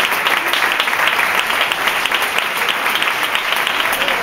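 Audience applauding: dense, steady clapping from a seated crowd, at the close of a dance performance.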